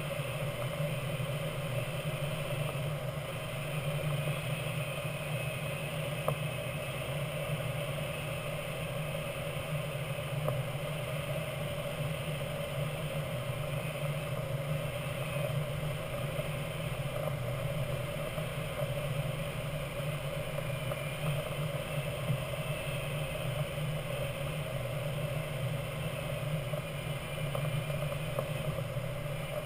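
Steady rush of air over the canopy of a Grob 103 glider on landing approach, heard inside the cockpit as an even drone with no engine.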